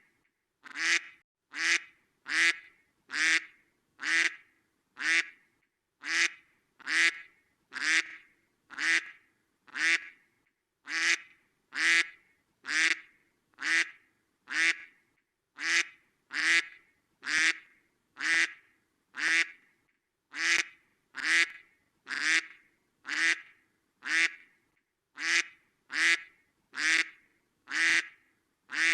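A duck quacking over and over: short, alike quacks at an even pace of about one a second.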